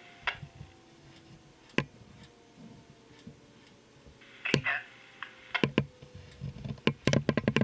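Scattered sharp clicks and ticks, coming thick and fast near the end, over a faint tone that slowly falls in pitch.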